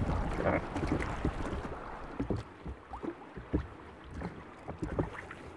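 Sea water splashing and lapping around a small rowed currach, louder in the first two seconds, then quieter with scattered small splashes and knocks.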